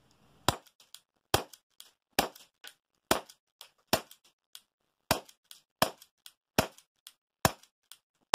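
Tokyo Marui Ruger LCP non-blowback airsoft gas pistol fired shot by shot, about ten sharp pops a little under a second apart, each followed by a couple of fainter clicks.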